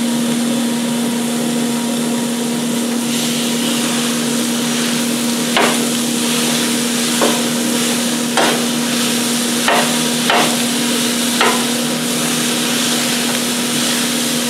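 Ground beef and onions sizzling on a hot steel flat-top griddle. In the second half a metal spatula chops through the beef and strikes the griddle top about six times, sharp clanks a second or so apart.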